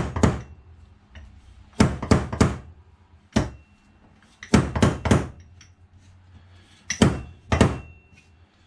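Fork seal driver knocking a new oil seal down into a Suzuki SV1000 fork slider: about eleven sharp metal knocks in quick groups of two or three, a second or two apart. The seal is being driven until the recess for its retaining clip shows.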